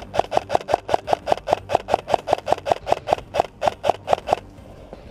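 Airsoft rifle firing a rapid, steady string of shots, about five or six a second, each a sharp mechanical crack; the firing stops about four seconds in.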